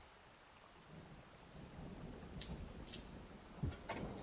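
Plastic wrap being cut and peeled off a cardboard game box: faint rustling from about a second in, with a few sharp clicks in the second half.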